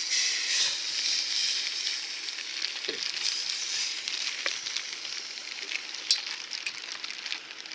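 Small pieces of pork frying in a hot pan: a steady sizzle, loudest at first and gradually easing off, with a few sharp pops.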